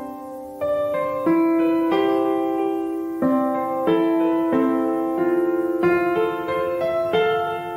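Background piano music: notes and chords struck about once a second and left to ring.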